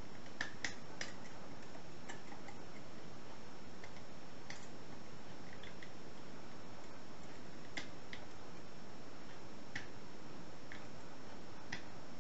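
Light, irregular clicks of a wire pick lifting the levers of an ERA Invincible 5-lever mortice lock held under tension, about a dozen scattered clicks over a steady hiss.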